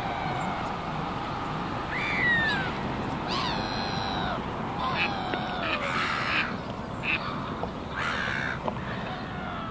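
Birds at a lakeside giving repeated harsh calls, a dozen or so short calls, several falling in pitch, over the steady hum of distant traffic.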